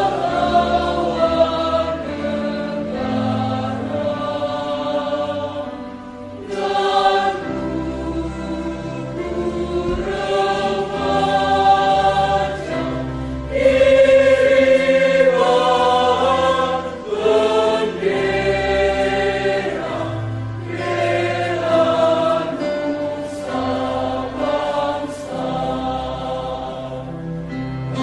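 Background music: a choir singing a slow piece in long held chords.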